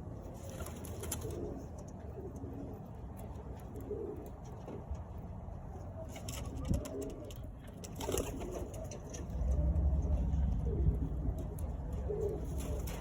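Pigeons cooing in the loft, a string of short, low calls repeating every second or so. About two-thirds of the way through, a low rumbling noise comes in and becomes the loudest sound.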